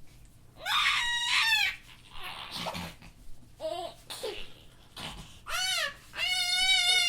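A young child laughing in high-pitched, drawn-out squeals with softer giggles between. One squeal lasts about a second, a short one comes about five and a half seconds in, and a long wavering one comes near the end.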